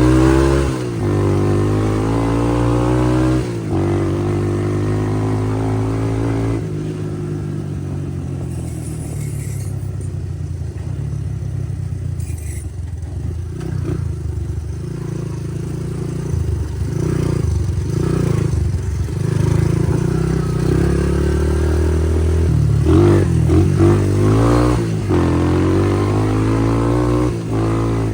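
1981 Honda ATC185S's single-cylinder four-stroke engine running, revved up and back down several times with steadier running in between, its ignition timing set back to factory and running well.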